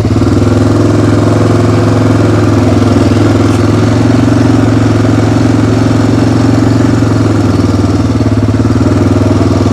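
Engine of the small riding vehicle running steadily under way, an even drone with no change in speed.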